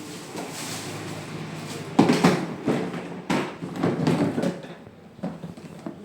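A PTMT plastic cistern being handled: a run of sharp plastic clacks and knocks, starting about two seconds in.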